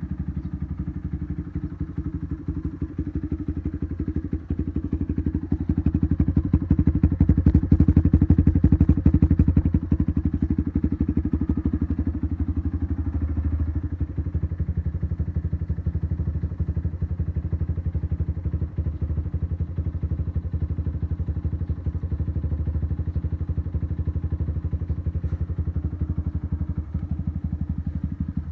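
Motorcycle engine and exhaust idling with a fast, even low pulsing. It grows louder for a few seconds about six seconds in, then settles back to a steady idle.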